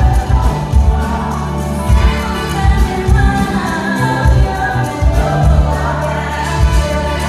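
Live singing over band music with a heavy, pulsing bass line, played through a concert sound system and heard from the audience.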